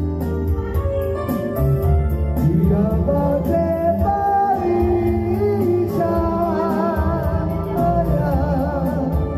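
Male singer singing into a microphone over a Korg Pa700 arranger keyboard's backing of steady bass and beat. Held notes after about six seconds carry a wide vibrato.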